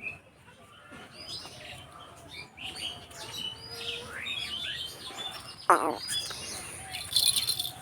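Small birds chirping and twittering in quick short calls, with one loud sharp squawk about six seconds in and a brief burst of rustling hiss near the end.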